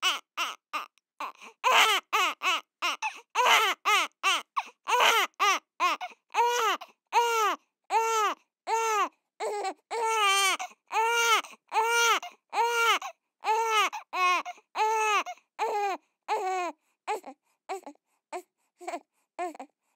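A baby crying: a steady run of short wailing cries, about one and a half a second, each rising and falling in pitch, getting fainter and more spaced out near the end.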